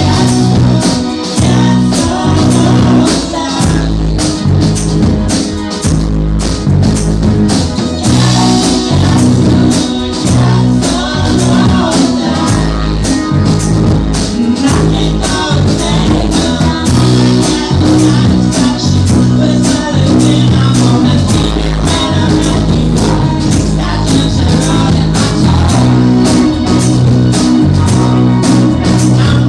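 Indie pop band playing live: electric guitar and drums with a steady beat, and singing.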